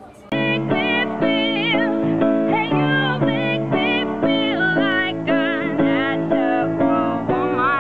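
Background music starts suddenly, a moment in: a quick melody of short plucked notes over a lower line, with a wavering high voice-like line above.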